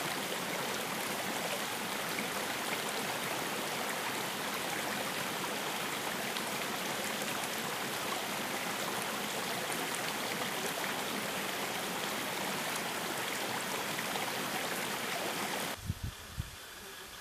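Spring water flowing out of a clear spring-fed pool: a steady, even rush of running water. About sixteen seconds in it cuts off abruptly to a much quieter background with a few low thumps.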